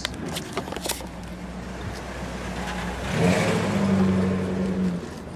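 A car engine rising in pitch and then holding a steady note for about two seconds, midway through, with a few handling clicks near the start.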